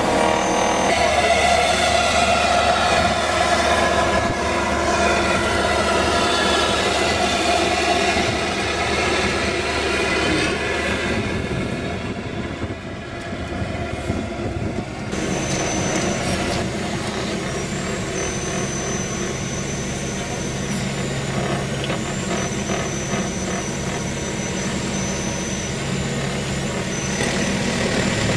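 Road-rail excavator working on a railway track, its engine and hydraulic attachment running steadily with several humming tones. From about halfway through, high thin whining tones come and go on top.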